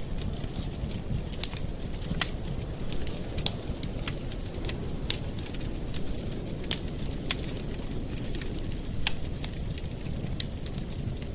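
Campfire burning: a steady low rumble of flames with sharp, irregular wood crackles and pops, roughly one or two a second.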